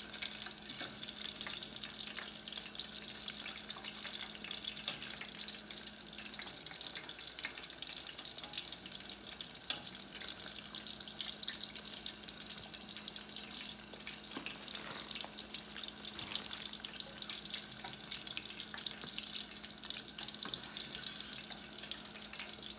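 Samosas deep-frying in a saucepan of hot oil: steady sizzling and crackling, with a couple of sharper knocks of a metal utensil against the pan about five and ten seconds in.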